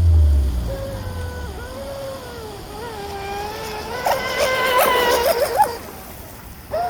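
Whine of a brushless-motor mini RC speedboat running across the water. A low hum falls away as it passes at the start, then the whine wavers and surges in quick throttle blips past the middle.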